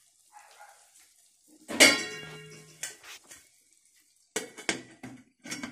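Aluminium dome lid clanging onto an aluminium kadai about two seconds in, with a short metallic ring, then several lighter clinks and knocks as the lid is set in place to cover the simmering chicken.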